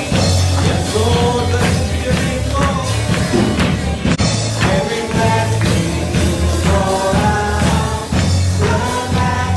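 Worship music: voices singing a melody over a band accompaniment with a steady beat and bass.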